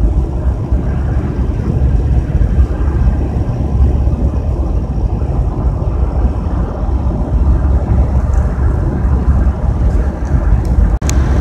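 Steady low rumble of road and engine noise from a van travelling at highway speed, heard from inside the cabin. The sound drops out very briefly near the end.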